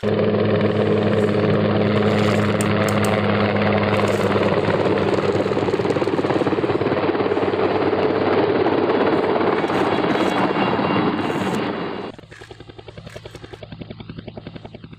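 Small motor running steadily with a constant hum, dropping much quieter about twelve seconds in.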